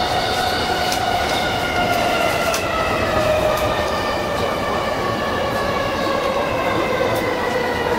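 JR East E233-1000 series electric train heard from its front car: the inverter and traction-motor whine slowly falls in pitch as the train brakes into a station, over steady running rumble. A few light clicks from the wheels over rail joints.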